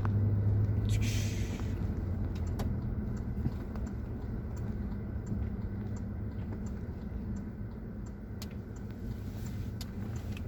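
Vehicle engine and road rumble heard from inside a moving vehicle: a steady low hum that eases off over the first few seconds, with a brief hiss about a second in and faint regular ticking.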